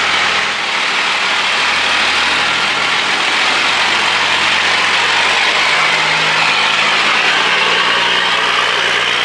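Unimog truck's diesel engine running steadily as the truck is moved, its note shifting slightly a couple of times.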